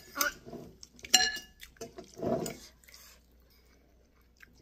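Metal spoon and fork clinking against a ceramic bowl while stirring soup, with the broth sloshing; one sharp, ringing clink about a second in and a short splash of liquid just after two seconds, then it goes quiet.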